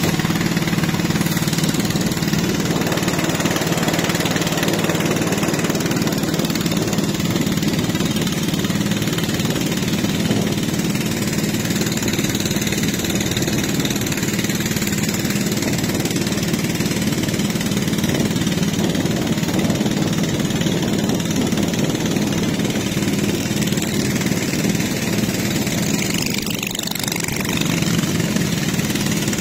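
Small riverboat's engine running steadily under way, a constant drone.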